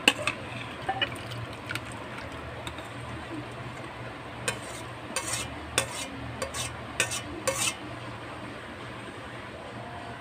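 A metal spoon scraping and clinking against a cooking pot as thick chicken liver and gizzard adobo is scooped out into a glass dish, a dozen or so short strokes, most of them in the middle of the stretch. A steady low hum runs underneath.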